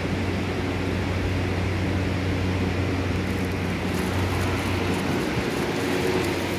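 JR West 683-series and 681-series electric limited express train pulling out of the platform. A steady low hum throughout, with a hiss and light ticking joining about halfway through as the train gathers speed.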